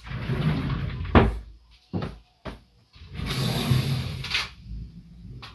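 Wardrobe door and clothes being handled: rustling, a sharp knock about a second in, a few lighter knocks, then a longer rustle of cloth.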